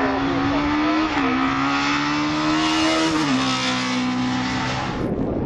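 Race car engine at full throttle climbing a hill-climb course, its pitch rising through the revs and dropping twice at upshifts, about a second in and again past the three-second mark. Near the end the engine sound cuts off abruptly into a wind-like rush.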